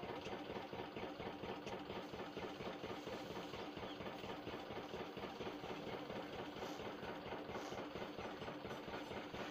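An engine idling steadily: a fast, even pulsing with a steady hum underneath.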